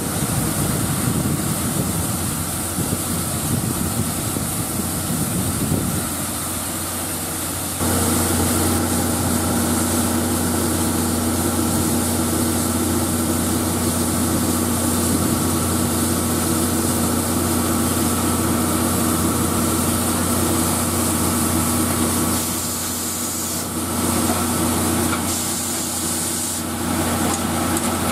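Steam locomotive D51 498 standing at a platform: steady steam hiss, joined about eight seconds in by a constant mechanical hum that holds to the end.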